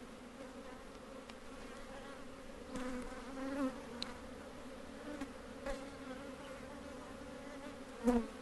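A mass of honeybees buzzing around an open hive, a steady hum that swells louder a few times, most of all near the end. It is the agitated, defensive buzz of a very aggressive colony whose old queen the beekeeper believes has failed.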